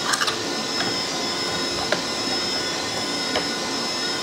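A few light clicks and taps of 3D-printed plastic parts as a wheel is pressed onto its axle, over a steady whirring machine hum with a thin high whine.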